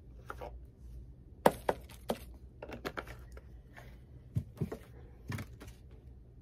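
Plastic acrylic paint bottles being handled and set down on a tabletop: a run of light, irregular clicks and knocks, the loudest about one and a half seconds in.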